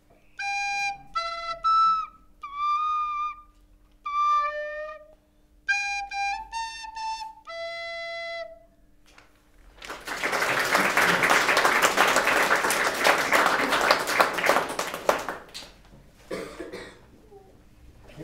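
A recorder plays the last phrases of a simple tune, one clear held note at a time with short gaps, and stops about eight seconds in. About a second later a small audience claps for about five seconds; the applause is the loudest sound.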